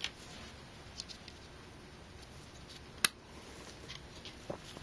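Light handling noise of small parts with a few faint ticks and one sharp click about three seconds in, as clips are fitted to a Phanteks PH-TC14PE CPU cooler's fan.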